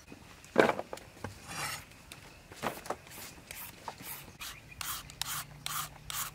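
Green papaya being shredded with a hand shredder: rasping scraping strokes that settle into a steady run of about two to three a second in the second half. A single louder scrape or knock comes about half a second in.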